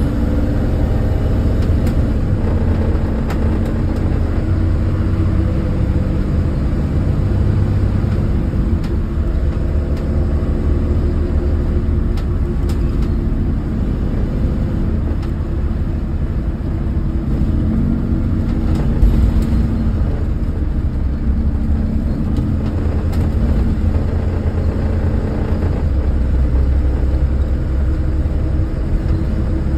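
School bus diesel engine and road noise heard from inside the cab while driving: a steady low drone whose engine tones rise and fall a little as the speed changes. There is one brief thump partway through.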